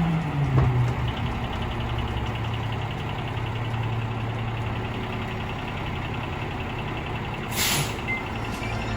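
Mack LR garbage truck's diesel engine dropping from higher revs to a steady idle within the first second, then idling evenly. Near the end comes a short hiss of released air from the truck's air brakes.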